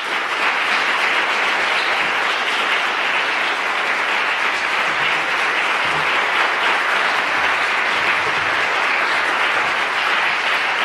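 Audience applauding steadily, a sustained round of clapping that starts at once and keeps going, welcoming a speaker to the lectern.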